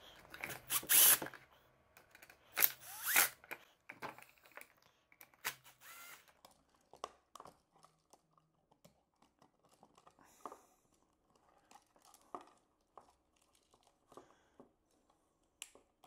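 Scattered clicks, scrapes and rustles of hands working a standard outlet in a blue plastic junction box, loosening its terminal screws and pulling the wires off. The loudest handling comes in the first few seconds, then only small ticks.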